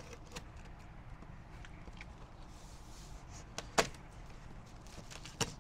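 Opening and handling the smoker's shipping box: light clicks and rustles, then two sharp knocks, one a little before four seconds in and another near the end, over steady low background noise.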